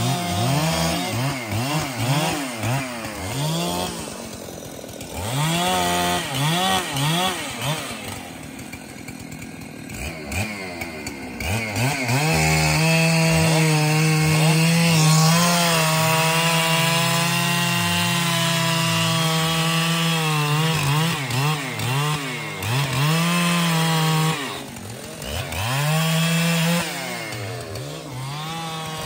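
Large two-stroke Husqvarna chainsaw cutting trembesi (rain tree) wood. The engine revs up and down and drops back twice. It then holds steady at full throttle under load for about twelve seconds, eases off, and revs again near the end.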